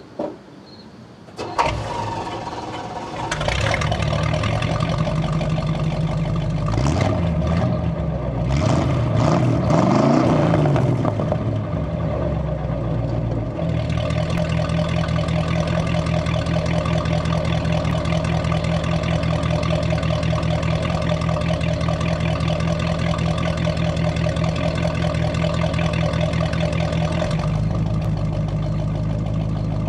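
A 1967 Buick Riviera's 430 cubic-inch V8, heard at the tailpipe, starts on a flooded carburetor. It catches with a sharp burst about a second and a half in and runs unevenly, the revs rising and falling several times. By about halfway it settles into a steady idle.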